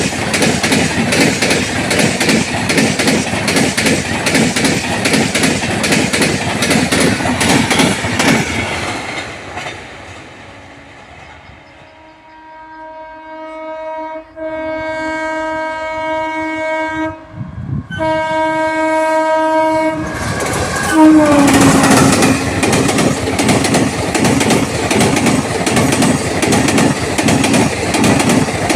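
Indian express train running through at about 110 km/h, its wheels rattling loudly over the track, fading away about nine seconds in. From about twelve seconds a locomotive horn sounds in a long blast with two short breaks, its pitch dropping as the locomotive passes about twenty-one seconds in, followed by the coaches clattering loudly over the rails at speed.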